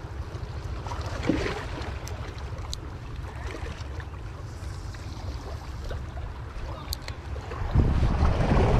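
Wind buffeting the microphone with a steady low rumble, over small waves lapping against the boulders of a rock breakwater. Near the end a wave washes in more loudly among the rocks. A few faint clicks are heard along the way.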